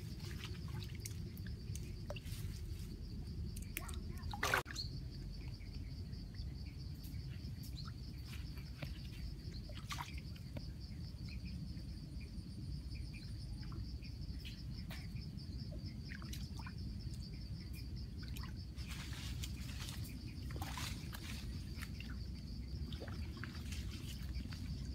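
Shallow stream water trickling and sloshing as someone wades and works among the sticks of a stick-fence fish trap, with scattered small splashes and clicks. A sharper splash about four and a half seconds in is the loudest moment, and a steady high-pitched buzz runs underneath.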